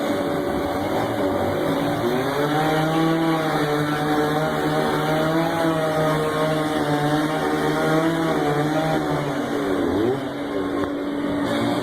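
Two-stroke chainsaw running at high revs while carving wood, its pitch wavering with the load. About ten seconds in the throttle eases off, the pitch drops briefly, and then it revs back up.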